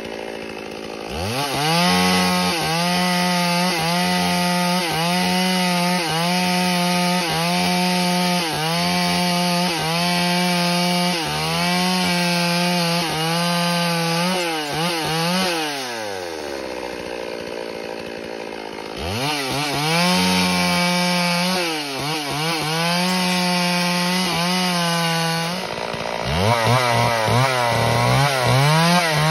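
Stihl two-stroke chainsaw cutting through a tree trunk at full throttle, its engine pitch wavering as the chain bites. It drops back to idle about halfway through, then revs up for another cut, dipping briefly near the end before revving again.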